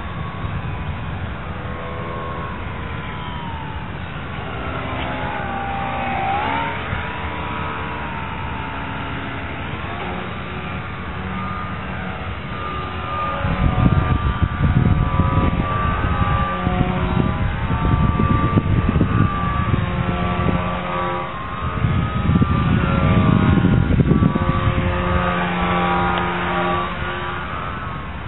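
Electric motor and propeller of a foam RC biplane whining in flight, its pitch gliding up and down. From about halfway through, gusts of wind buffet the microphone in two long spells.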